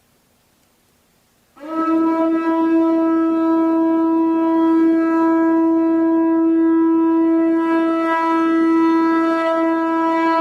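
Conch shell trumpet blown in one long, steady note that starts about a second and a half in and holds at one pitch.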